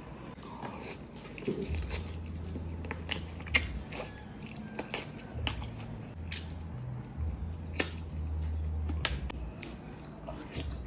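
Close-miked eating of saucy adobo chicken drumsticks: biting into and chewing the meat, with scattered wet mouth clicks and smacks over a low rumble that comes and goes.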